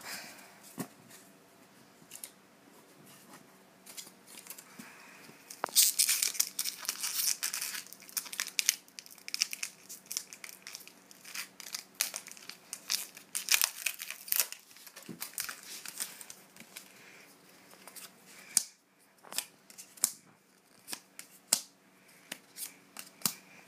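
A foil Magic: The Gathering booster pack wrapper being torn open and crinkled, a dense run of sharp crackling starting about six seconds in. Scattered lighter crackles and clicks follow as the wrapper and cards are handled.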